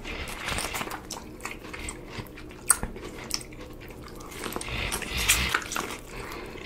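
Close-miked bites into corn on the cob: kernels crunching and popping in many small sharp clicks, with chewing, the loudest crunching about five seconds in.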